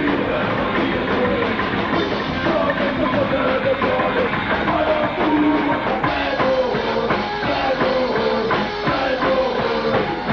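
Psychobilly band playing loud and fast live, with a steady, driving drum beat and a singer shouting into the microphone.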